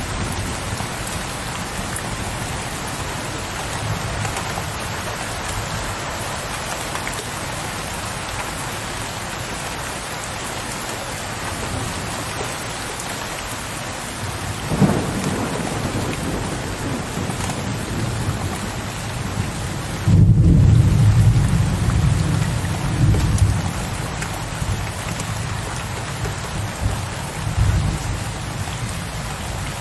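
Steady rain falling, with thunder: a short crack about halfway through, then a sudden, louder low rumble about two-thirds through that rolls on for several seconds and swells once more near the end.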